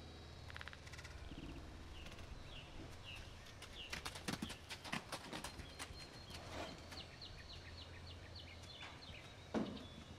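A filly's hooves clattering and thudding as she trots and plays, with a cluster of sharp hoof strikes about halfway through and a louder knock just before the end. A bird chirps repeatedly in the background.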